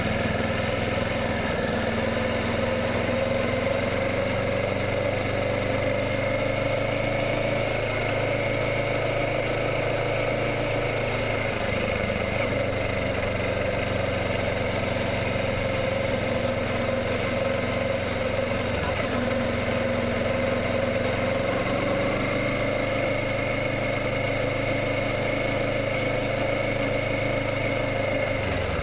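Kawasaki Ninja 650's parallel-twin engine running at a steady, unchanging speed.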